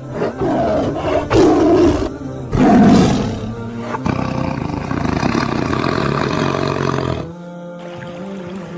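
Lion roaring: three loud roars about a second apart, then a steadier, quieter stretch that ends about seven seconds in.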